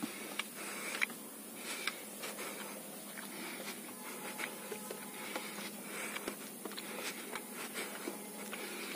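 Footsteps climbing concrete stairs: a series of soft taps, roughly one every second, over a steady hiss.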